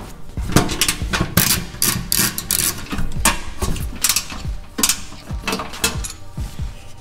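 Socket ratchet clicking in short, irregular runs as it loosens an engine oil drain plug.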